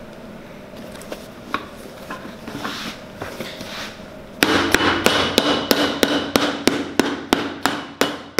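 Cobbler's hammer striking a leather heel lift on a boot heel to set it down, a steady run of sharp blows about three a second that starts about four seconds in. Before that, only a few faint clicks of the leather being handled.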